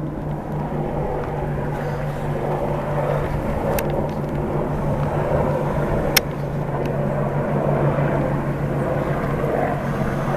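Military helicopters flying overhead at a distance, a steady drone of engines and rotors that grows slightly louder.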